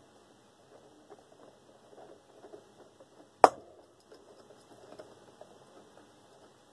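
A screwdriver working a long screw out of the back of a metal desk fan: faint scraping and small clicks, with one sharp click about three and a half seconds in.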